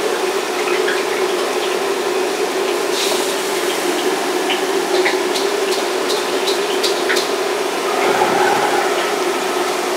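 Steady roar of a commercial wok kitchen with its burners running, a steady hum underneath, and scattered sharp metal clinks of a ladle on a wok through the middle.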